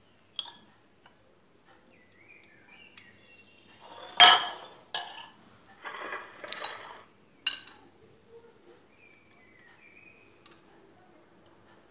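A few sharp clinks and knocks of a ceramic plate and fluted metal tart tins being handled on a stone counter, the loudest about four seconds in, with a rougher scraping stretch around six to seven seconds.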